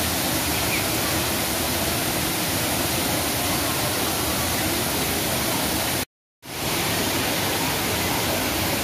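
Waterfall and a small rocky cascade rushing: a steady, even wash of falling water. The sound cuts out completely for a moment about six seconds in, then comes back unchanged.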